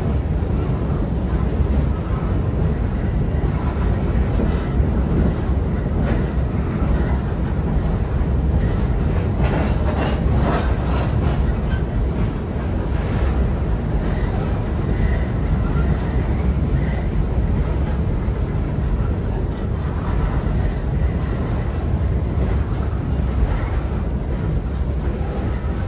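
Freight train's hopper cars rolling past at steady speed: a continuous heavy rumble of wheels on rail, with a brief cluster of clanks about ten seconds in.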